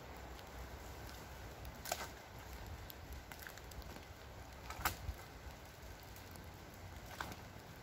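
A few sharp knocks, about two, five and seven seconds in, the middle one the loudest, over a faint steady background: the wooden poles of a rope ladder being raised and stood against a tree trunk.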